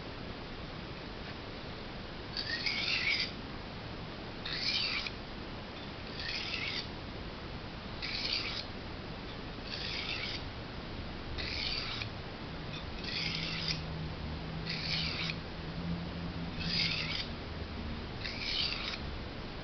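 Knife blade scraped across a sharpening stone in slow single strokes, about ten of them, one every two seconds.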